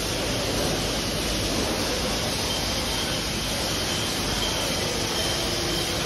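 Steady machinery noise of a brewery bottling line running, with a rotary bottle filler at work, and a faint steady high tone over the rushing hum.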